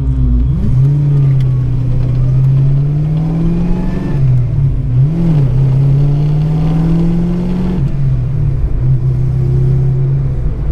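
1988 Fox-body Mustang's small-block Ford V8 pulling hard through the gears of its manual gearbox. The revs climb, drop sharply at quick shifts about four seconds in and again about eight seconds in, then hold steady.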